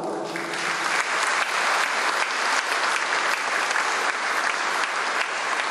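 An audience applauding steadily, dense clapping with no breaks.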